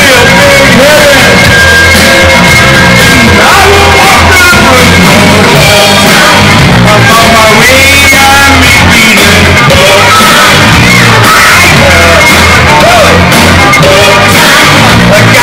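Loud karaoke music: a pop-rock backing track with a steady beat and a voice singing over it through the bar's sound system.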